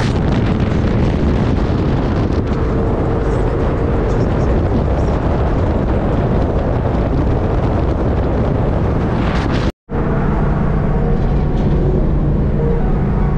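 Ford Mustang driving at speed: loud, steady wind and road noise on the microphone. The sound drops out completely for a split second about ten seconds in, then comes back with a steadier low drone.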